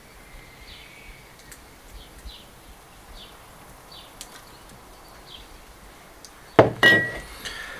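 Olive oil poured in a thin stream from a glazed earthenware jug into a clay pot, barely audible, with faint bird chirps. Near the end comes one loud knock with a short ring as the jug is set down.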